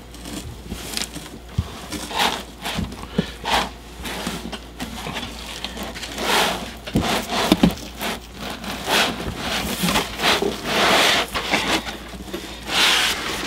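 Packaging being handled while a computer tower is unpacked: irregular crinkling and rustling of plastic and cardboard, with scattered light knocks.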